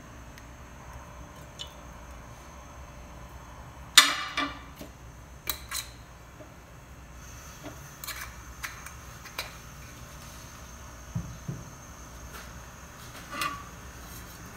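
Metal spoon and glass oil bottle clinking and knocking against a nonstick frying pan and hob as olive oil is spooned into the pan. One sharp, ringing clink about four seconds in is the loudest, followed by a few lighter knocks, over a low steady background hum.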